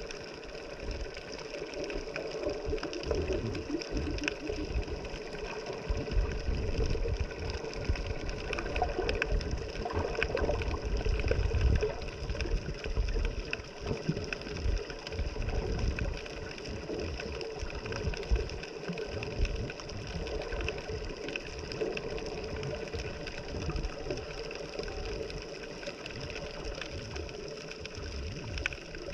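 A motor's steady whine, several held tones at once, over an uneven low rumble that swells and fades.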